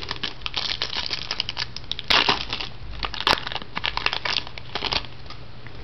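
Foil wrapper of a trading-card pack crinkling and crackling as it is torn open and handled, with two louder crunches about two and three seconds in. It stops about a second before the end.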